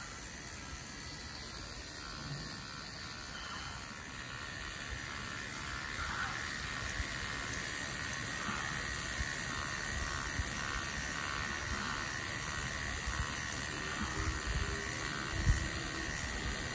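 Electric toothbrush buzzing steadily while it brushes a dog's teeth, louder after about six seconds, with a few low knocks near the end as the brush bumps against the teeth.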